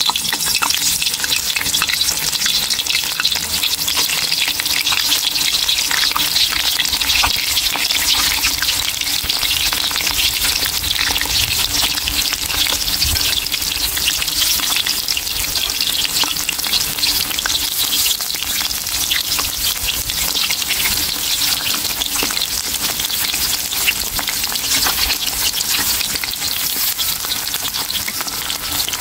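Pork-stuffed tofu pieces shallow-frying in hot oil in a wok: a steady sizzle with constant small crackles and spits of oil.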